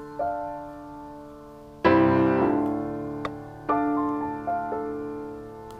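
Solo piano background music: slow, sustained chords, each struck and left to fade, with a fuller chord about two seconds in and another a little later.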